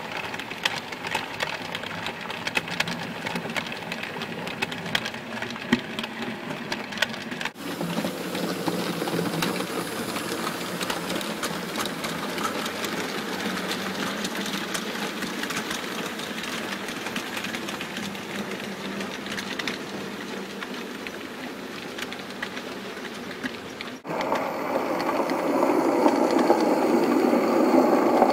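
Bachmann C class OO gauge model locomotives running on the track: a steady small electric motor hum with wheels clicking and rattling over the rails. It changes abruptly twice, and is loudest near the end as a train passes close by.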